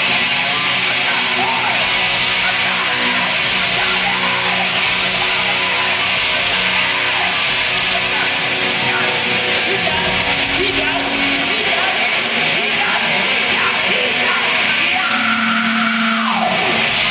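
Hard rock band playing live, loud and dense: distorted electric guitars, bass and drums, heard from among the audience. Near the end a long held note slides down in pitch.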